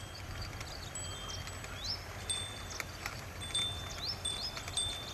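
Birds calling in short repeated whistles, each a quick rising note paired with a short flat note, over a low steady outdoor rumble.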